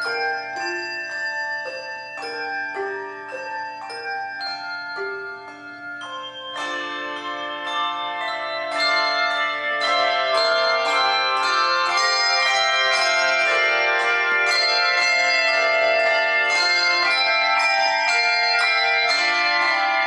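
A handbell choir ringing brass handbells, playing a tune of struck ringing notes at a steady pace. It starts fairly soft with single notes, then thickens into fuller chords and grows louder about seven to nine seconds in.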